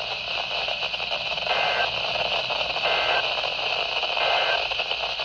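Weather radio reception full of hiss and static. Three short two-tone data bursts come through it about a second and a third apart, the pattern of an Emergency Alert System end-of-message signal closing the warning.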